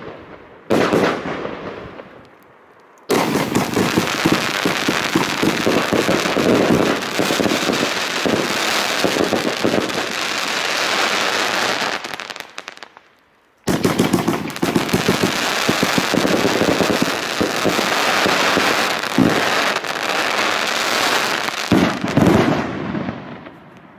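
239-shot compound fireworks cake firing: one burst that dies away, a short lull, then about ten seconds of rapid shots and bursts. After a brief break comes another long rapid volley, ending in a few loud bangs near the end.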